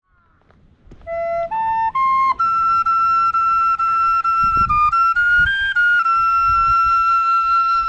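A simple flute-like melody on a single pure tone: three short rising notes about a second in, then one long held note with a brief dip and a short step up near the middle. Low wind rumble runs underneath.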